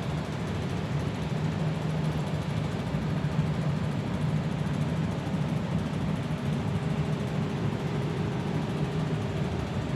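Mazda RX-7 rotary engine running at a steady speed, with no revving.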